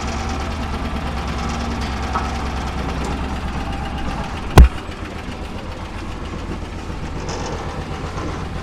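A farm machine's engine running steadily with a low hum, with one sharp knock about four and a half seconds in.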